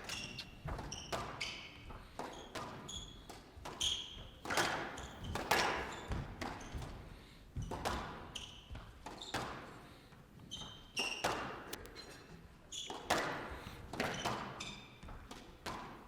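A squash rally: the ball smacking off rackets and the court walls about once a second at uneven intervals, with short high squeaks of players' shoes on the court floor between the hits.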